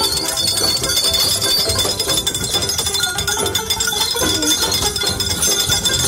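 Horse-drawn carriage in motion: a continuous jumble of rattles, knocks and metallic clinks from the carriage and harness, with a steady high whine above it.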